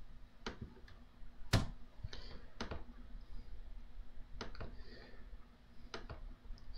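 Computer mouse clicks and keyboard keystrokes: about a dozen short, sharp clicks at irregular spacing, the loudest about one and a half seconds in.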